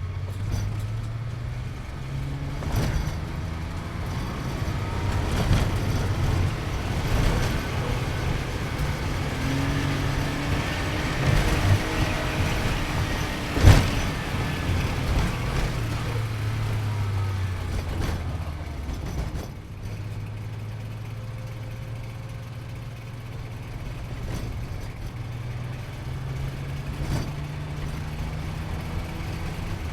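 Sports car engine heard from inside the cabin, pulling through the gears in rising steps, then easing off with the pitch falling and running steadier at lower revs before climbing again near the end. A single sharp thump about halfway through is the loudest sound.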